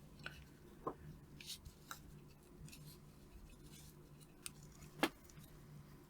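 Faint, scattered small clicks and taps of tools and objects being handled on a workbench, the sharpest about five seconds in, over a low steady hum.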